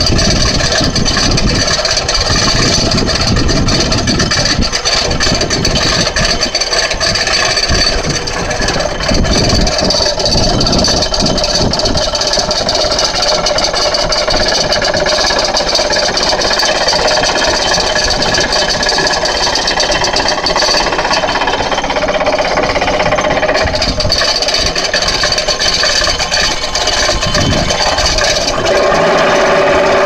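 Excavator-mounted hydraulic vibratory pile driver running as it vibrates a concrete pile down into the ground, over the excavator's diesel engine: a loud, steady mechanical drone with a fast vibrating rattle, its tone shifting slightly near the end.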